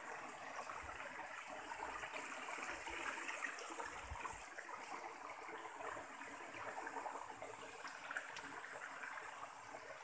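Steady rush of water from a waterfall and its stream running over rocks, heard faintly, with a few soft low knocks in the first half.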